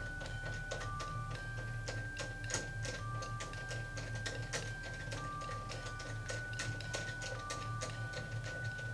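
Background music: a simple melody of held notes stepping between a few pitches over a fast ticking beat, with a steady low hum under it.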